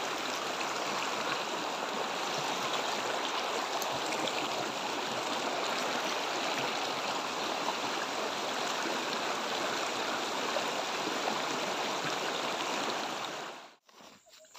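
Steady rush of a fast, muddy river running over shallow riffles, cutting off abruptly near the end.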